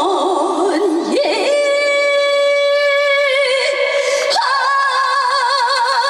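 A woman singing a trot song with backing music. Her first note wavers with a wide vibrato, then she slides up about a second and a half in to a long high note that starts steady and turns to vibrato. A little after four seconds she moves to another note, also with vibrato.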